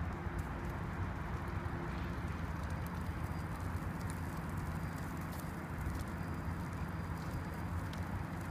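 Steady low rumble of urban outdoor background noise.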